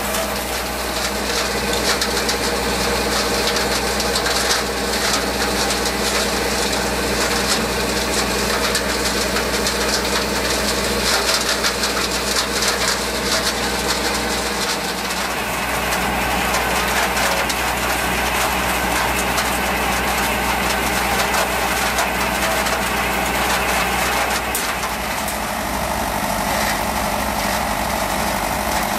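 Tractor engine running steadily together with the mechanical noise of a tractor-drawn ASA-LIFT GB-100 green bean harvester's picking machinery at work. The sound changes character slightly twice.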